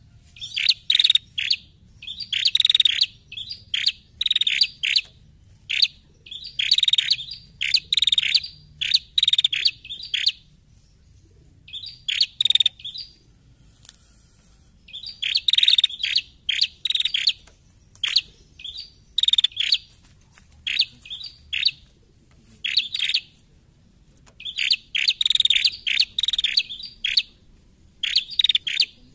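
Female prenjak, a small Indonesian cage warbler, calling in fast runs of sharp, high chirps, several to a second, broken by short pauses.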